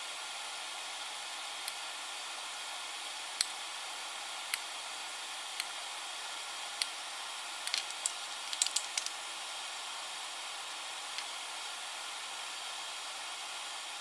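French toast frying in a pan, sizzling with a steady hiss and sharp pops of spitting fat. The pops come singly every second or so, then in a quick run a little past halfway.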